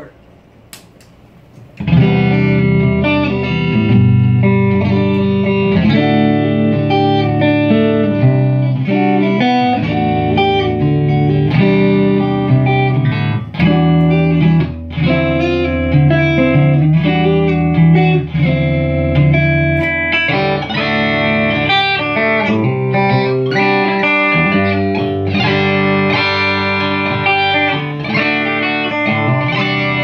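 Stratocaster-style electric guitar played through an amplifier and a board of effects pedals. After a short quiet pause with a couple of clicks, continuous strummed chords and single-note lines start about two seconds in.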